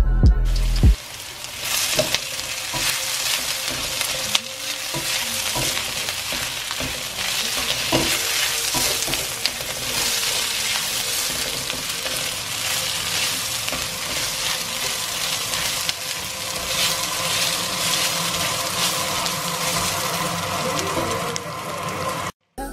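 About a second of background music, then sliced mushrooms and chopped red onions sizzling in a hot stainless steel wok. A silicone spatula stirs them, with scattered knocks and scrapes of the spatula against the pan.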